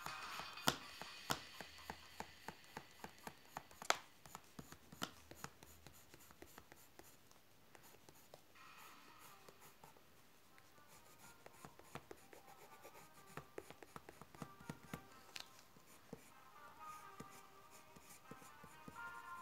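Colored pencil scratching across paper in quick back-and-forth shading strokes. The strokes come thick for the first several seconds, thin out midway, then pick up again, over faint background music.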